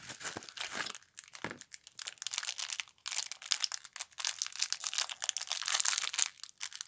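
Parcel packaging crinkling and rustling as it is unwrapped by hand, in dense crackly spells with short pauses about a second in and again about three seconds in.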